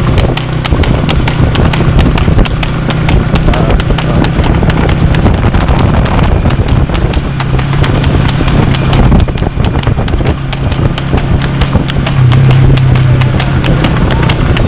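Horse's hooves clip-clopping on asphalt at a fast trot as it pulls a two-wheeled cart: a rapid, even beat of hoof strikes, with a steady low hum underneath.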